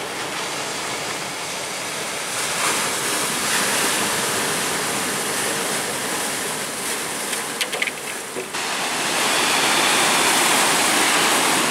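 Ocean surf: broken waves rushing and hissing as whitewater washes over a rocky shore, growing louder about three-quarters of the way through.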